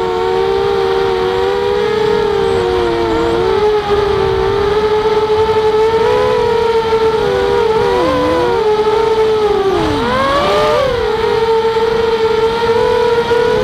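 Walkera Rodeo racing quadcopter's motors and propellers whining, heard from its onboard camera. Several close pitches beat against each other. The pitch dips and swoops back up with the throttle about eight and ten seconds in, then holds steady near the end.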